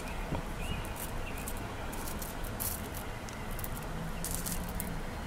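Faceted glass crystal teardrop beads clicking lightly against each other as they are handled in a palm: scattered small ticks over a steady background hiss.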